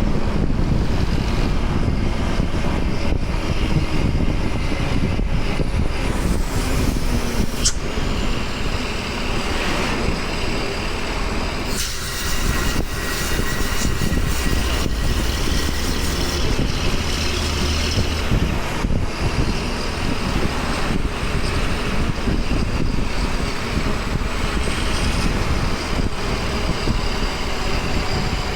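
Hino bus diesel engine running hard at speed, with steady road and driving noise, a thin high whine that slides down in pitch now and then, and a brief dip in the engine sound about twelve seconds in.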